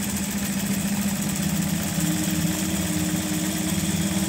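Juki LZ-586 industrial straight-and-zigzag sewing machine running steadily, sewing a zigzag stitch through thick layered fabric. Its motor hums under the rapid needle strokes, the hum shifting slightly about two seconds in.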